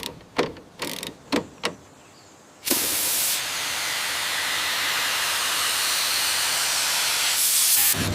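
A few light knocks, then a steady, loud spraying hiss that starts abruptly about two and a half seconds in and runs for about five seconds, of the kind a spray gun or compressed-air jet makes.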